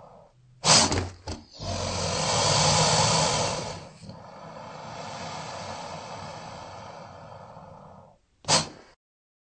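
American alligator hissing: two short, sharp bursts about a second in, then a long loud hiss of about two seconds that tails off into a softer, steadier one, and one more short burst near the end.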